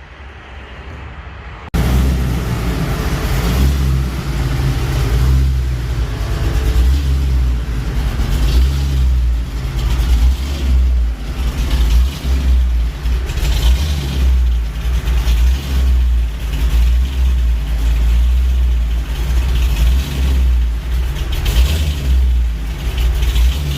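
6-litre V8 with a small cam running loud, a deep low rumble with the revs rising and falling. It comes in sharply about two seconds in.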